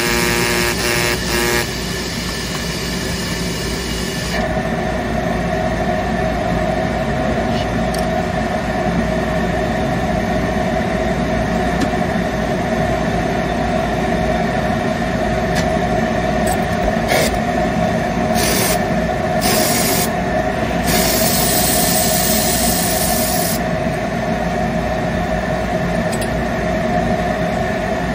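Spray gun of a stain-removal spotting machine hissing out a fine mist onto silk in on-and-off bursts, over the steady drone of the machine's motor. A steady hum joins the drone about four seconds in.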